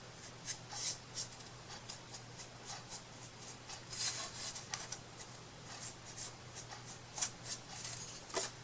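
Faint, irregular light scratching and rubbing strokes of hand craft work on a tabletop, over a steady low hum.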